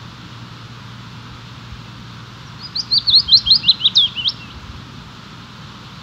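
A songbird sings one quick run of about ten sharp notes, lasting under two seconds, around the middle. It sings over the steady rush of a fast-flowing moorland stream.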